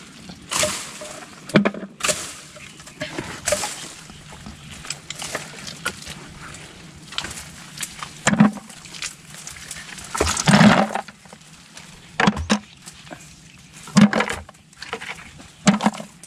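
Irregular wet splashing and squelching of hands working through swamp mud and water to pick out snails, with about eight sharper splashes at uneven intervals.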